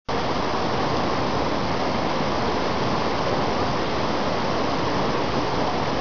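Whitewater river rapids rushing steadily over rocks.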